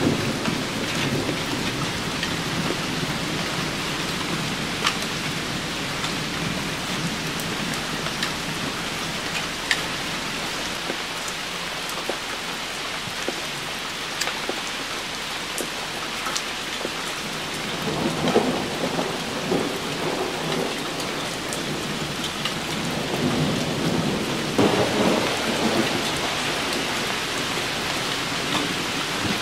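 Steady rain with scattered sharp drop ticks, and thunder rumbling twice, once about two-thirds of the way through and again near the end.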